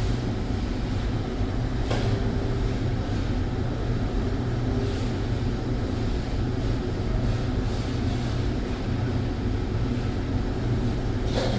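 Steady low mechanical rumble and hiss with a constant hum, like a machine running, with a faint click about two seconds in and another near the end.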